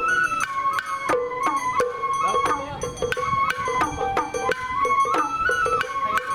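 Sawara-bayashi festival music: a high bamboo flute melody that steps and slides between held notes, over rapid taiko drum strokes.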